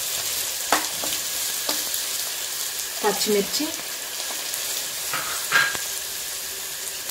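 Chopped onions frying in hot oil in a pan, sizzling steadily, while a spatula stirs them and scrapes against the pan now and then.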